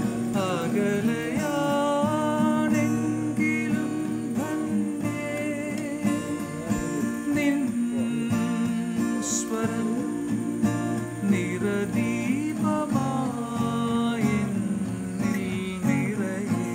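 A man singing to his own acoustic guitar accompaniment: guitar chords under a gliding solo voice.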